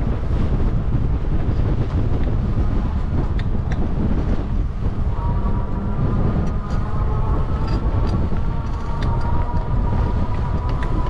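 Wind rushing over the microphone of a moving bicycle, a heavy steady rumble, joined about five seconds in by a steady whining tone that holds to the end.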